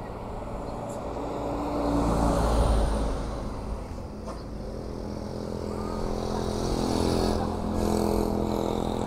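Road traffic passing. A bus goes by with a deep rumble, loudest two to three seconds in; later a car and motor scooters pass close, their engines loudest near the end.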